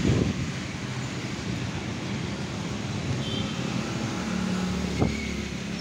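Heavy rain pouring onto a waterlogged street, a steady hiss, with the hum of a car driving through the water. A single sharp knock about five seconds in.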